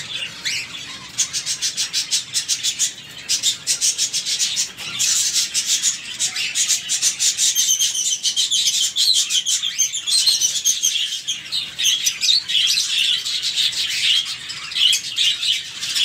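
A colony of budgerigars chattering and chirping together, a dense, continuous mass of rapid high-pitched calls and warbles.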